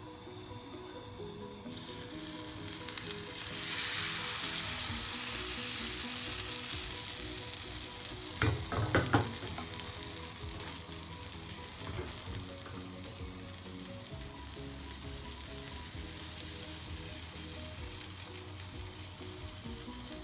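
Pancake batter sizzling in a hot frying pan on a gas hob. The hiss starts suddenly about two seconds in as the batter hits the pan, is loudest over the next few seconds, then settles to a steadier, quieter sizzle. A few sharp knocks come about eight seconds in.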